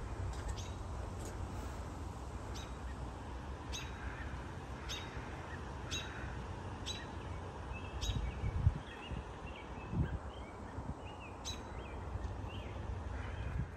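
Outdoor ambience: a bird repeating a short, sharp, high chirp about once a second. Other birds call faintly in the second half, over a steady low rumble.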